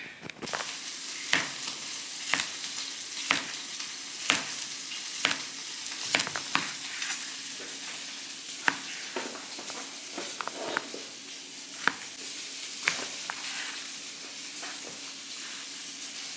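Food sizzling as it fries in a pan, a steady hiss, with sharp clicks about once a second over it.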